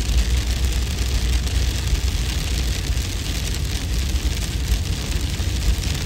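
Steady storm ambience: a deep, even wind rumble under a continuous hiss, with faint fine patter of falling hail or snow.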